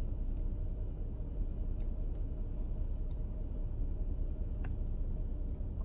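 Steady low rumble with a few faint, short clicks spaced about a second and a half apart.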